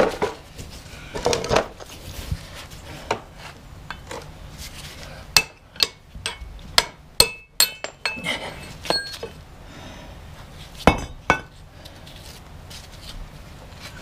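Hammer striking steel, knocking a part through on a Kubota backhoe: about a dozen sharp, irregular metallic blows, several with a short ring, stopping a few seconds before the end.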